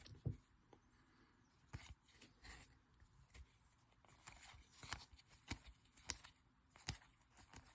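Faint ticks and soft flicks of baseball trading cards being handled and flipped through one by one, a small click every half second to a second.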